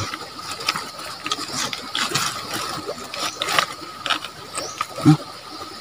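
Irregular clicks and scrapes of loose pebbles shifting and knocking together under hands and sandals while a hook is worked out of a small eel on the stones, with one duller knock near the end.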